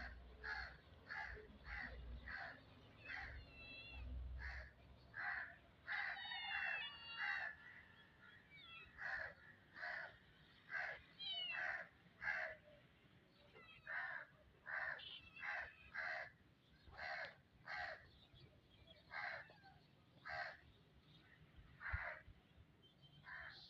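Crow cawing over and over, short caws about once a second, with a few higher, gliding calls mixed in during the first half.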